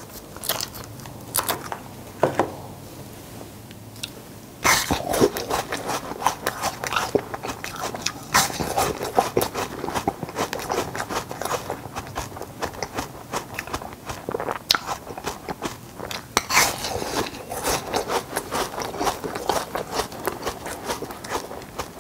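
A person biting and chewing ice cubes, close to the microphone. A few single cracks come first, then from about five seconds in a steady run of fast, uneven crunching.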